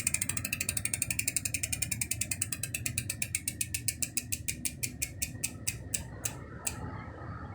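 SRAM X9 rear hub with four pawls freewheeling, its clicking ratchet slowing down steadily as the wheel coasts to a stop near the end. Its sound is unchanged after almost three years of use, long rides included.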